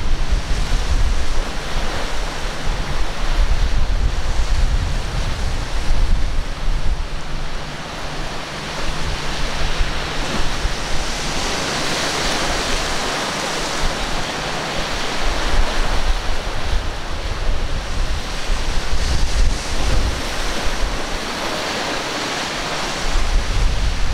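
Heavy surf breaking and washing, with wind buffeting the microphone. The wind rumble is strongest at the start, eases off for a while, and comes back near the end; a louder rush of breaking water comes about halfway through.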